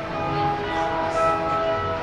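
Chiming, bell-like music: several held tones at different pitches overlapping.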